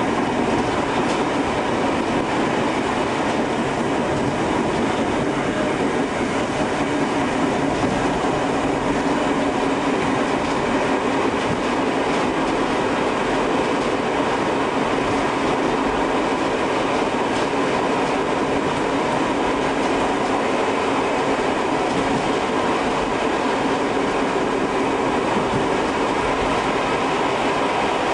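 Tobu 5700-series electric train running along the track, heard from the front of the cab as a steady running noise of wheels and motors.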